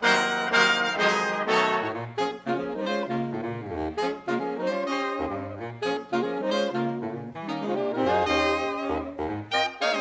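Big band jazz played back from a cassette tape: trumpets, trombones and saxophones playing together over a bass line that moves note by note, opening on a loud full-ensemble chord.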